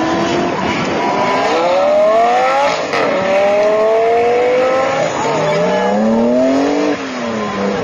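Porsche 911 accelerating hard through the gears, its engine note rising and then dropping at each upshift, about every two seconds. A second sports car engine revs up behind it near the end.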